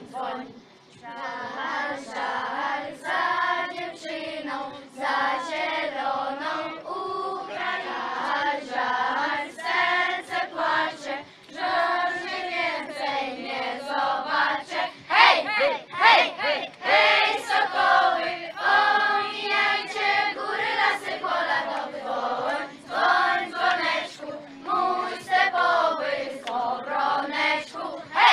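A group of children, mostly girls, singing a song together as a choir.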